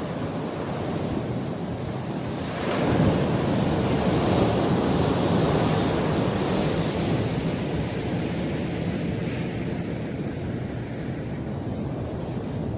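Sea surf breaking and washing on the beach, with wind buffeting the microphone; the noise swells louder about two and a half seconds in, then eases.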